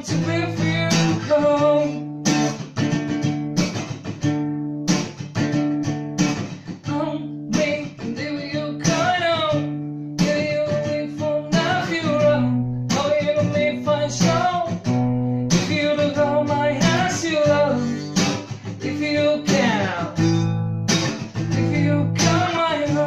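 Acoustic guitar strummed in a repeating chord pattern, with a man singing a melody over it.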